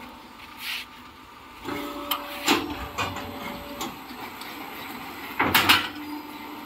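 Three-block concrete block making machine cycling: a motor whine holds for about two seconds with several sharp metal clanks over it, then a short loud rush of noise near the end.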